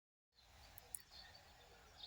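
Near silence: faint outdoor ambience with a few faint bird chirps and a single soft click about a second in.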